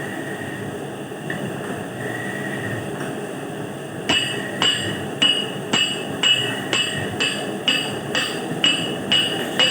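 A steady mechanical background noise, then from about four seconds in, regular hammer blows about two a second, each with a short metallic ring.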